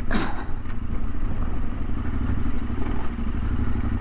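Yamaha Ténéré 700's parallel-twin engine running as the bike is ridden through loose sand, under a steady low rumble, with a brief clatter just after the start.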